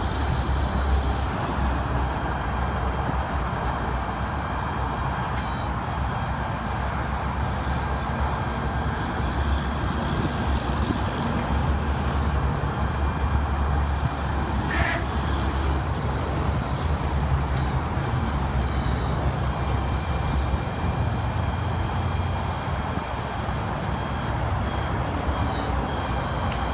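The Ford F550's 6.7-litre Power Stroke V8 diesel running steadily, with a steady high whine above the engine and a few brief clicks.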